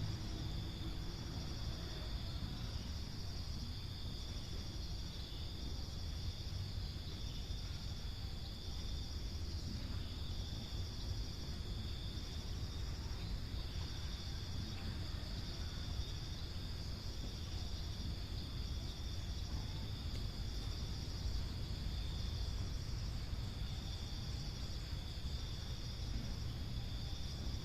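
Insects chirring steadily in a high band that swells in a slow regular rhythm, over a low steady rumble.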